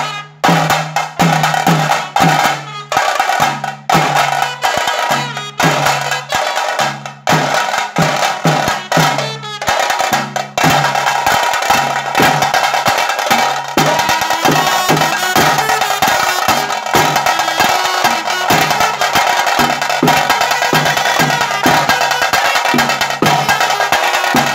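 Tiger-dance (huli vesha) drumming: sharp, fast stick strikes on drums over low pitched drum notes. The beating comes in phrases with short breaks for the first ten seconds or so, then runs into a continuous fast roll.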